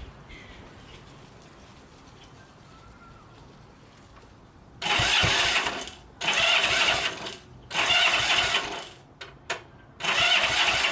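A 1967 Honda CB77 Super Hawk's 305 cc parallel-twin engine being cranked over four times in short bursts of about a second, without catching. The owner suspects it has run out of fuel.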